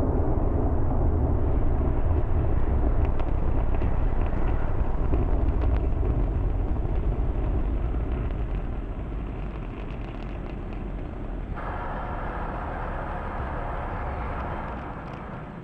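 Falcon Heavy's 27 Merlin engines during ascent: a low, crackling rumble that fades from about eight seconds in as the rocket climbs away, with a sudden change in tone about twelve seconds in.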